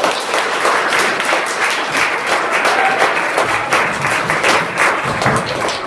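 Audience applauding: many hands clapping in a dense, steady patter at the end of a children's song.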